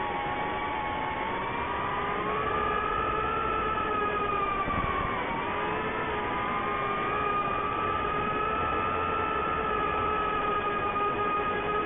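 ImmersionRC Vortex 150 Mini quadcopter's brushless motors and propellers whining in flight: several close tones that rise and fall in pitch together, dipping briefly about five seconds in, over a steady hiss.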